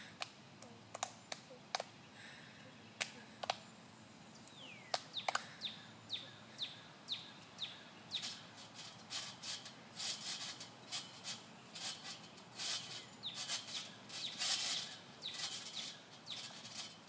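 Hand claps from a children's clapping game, with birds chirping, then a trampoline's mat and springs sounding with each bounce. The bounces come in rhythmic noisy rattles about two a second.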